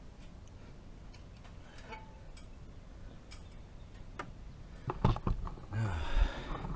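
Scattered light clicks and taps from hands working with small parts and tools, with a louder cluster of knocks and rustling about five seconds in.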